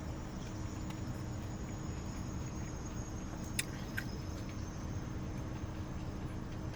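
Steady low background hum with a thin high-pitched whine, and two small clicks about three and a half and four seconds in.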